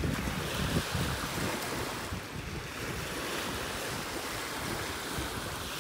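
Small Great Lakes waves washing onto a pebbly sand shore in a steady, even wash, with wind rumbling on the microphone.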